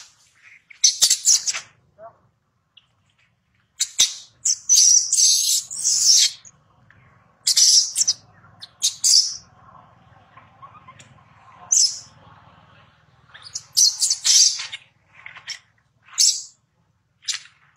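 Infant macaque giving distress screams: repeated short, high-pitched squeals in clusters with brief pauses, as it is pinned and handled by its mother.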